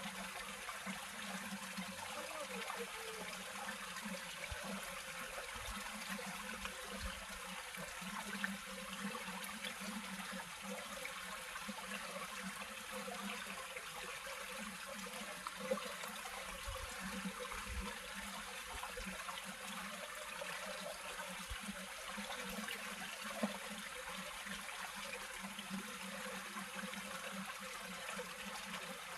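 Steady rush and trickle of flowing water, over a low steady hum, with a few faint knocks.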